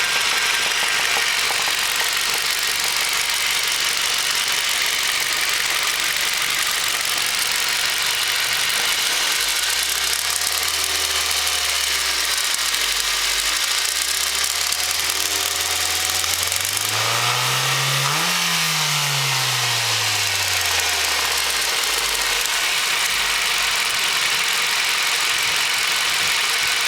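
High-mileage Ford 2.0-litre Duratec four-cylinder engine running with a knocking noise from the exhaust side, which the owner wonders could be spark knock. The revs rise a little about a third of the way in, then climb higher and drop back toward idle; loud valve ticking is typical of this engine as it decelerates.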